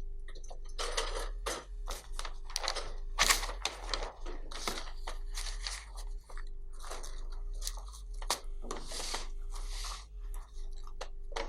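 Paper rustling and crackling as office documents are handled and leafed through, in irregular bursts, over a faint steady hum.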